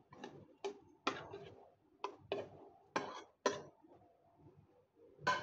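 Pieces of cut mango dropped by hand into a plastic blender jar: about eight short, irregular knocks.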